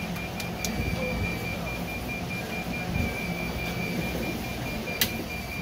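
Steady background hum with a faint high-pitched whine, broken by a few small clicks and one sharp click about five seconds in.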